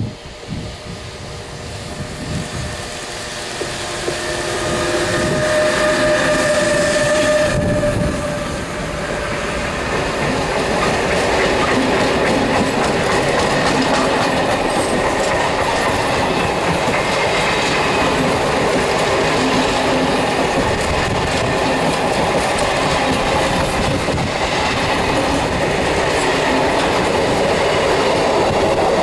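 An electric freight locomotive passes close by, its steady tones growing louder and cutting off about eight seconds in. After it, a long train of container flat wagons rolls past with a steady clatter of wheels on the rails.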